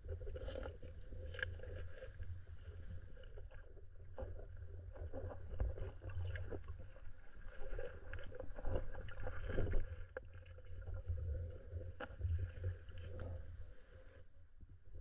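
Muffled underwater sound of a shallow rocky river heard through a submerged camera: a steady deep rumble with scattered faint clicks and knocks.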